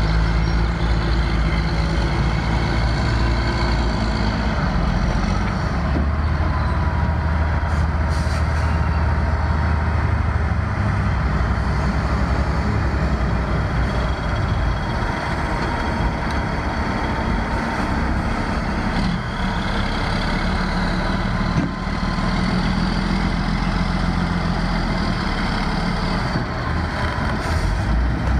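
Loaded log truck's diesel engine running under load as the rig pulls slowly forward, a steady heavy engine note with a faint high whine over it through the middle.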